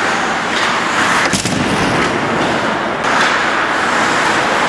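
Steady arena noise of an ice hockey game in play, heard from behind the rink glass, with one sharp impact crack about a second in.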